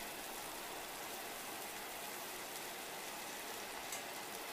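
Lamb chops sizzling in hot olive oil in a cast iron skillet, a steady even hiss, with a faint click about four seconds in.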